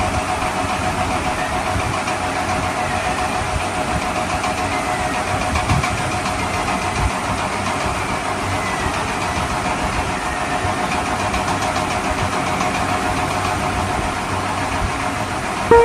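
A car engine running steadily at idle with an even, continuous rumble.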